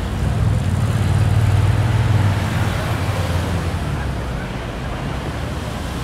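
City road traffic ambience: a steady wash of traffic noise with a low engine rumble that swells over the first two seconds and then eases off.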